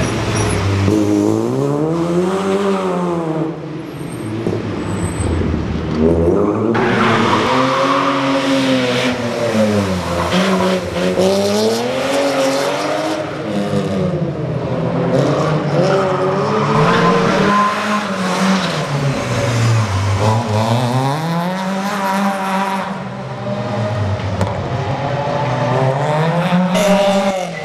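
Rally cars under hard driving, one after another: engines revving up and dropping back every few seconds, with some tyre noise.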